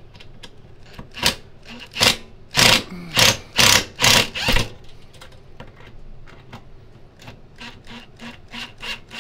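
Cordless drill-driver backing a long screw out of an old fluorescent light fixture's mounting. It runs in a series of short, loud bursts from about a second in to nearly five seconds in, then more quietly with a regular ticking, about two to three a second, toward the end.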